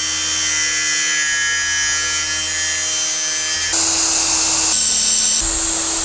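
Angle grinder cutting metal with a steady grinding whine. About three and a half seconds in it stops, and a Ryobi cordless drill runs in its place. The drill's pitch drops for about half a second and then rises again.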